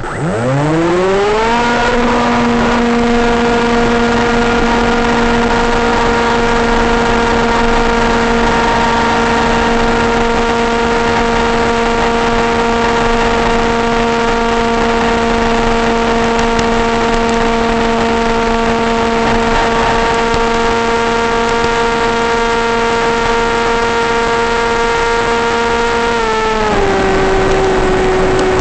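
Electric motor and propeller of an FPV flying wing, heard over the onboard camera's microphone. It spools up quickly to a steady high whine in about a second and a half, then drops to a lower steady pitch near the end as power is eased.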